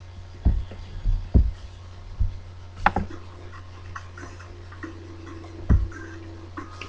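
Irregular knocks and taps from handling a pen and paper on a desk close to the microphone, about seven dull thumps at uneven spacing, over a steady low electrical hum.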